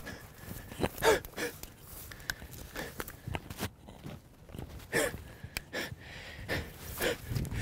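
Footsteps swishing through tall grass, in irregular strides, with a few short breathy gasps.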